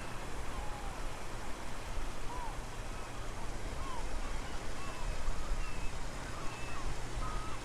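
Strong wind blowing on the microphone, a steady low rush over the sound of the sea at low tide, with birds chirping repeatedly in short high calls.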